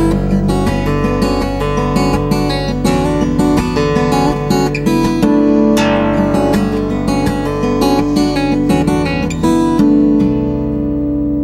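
Background music: a strummed acoustic guitar over held chords and a low bass line.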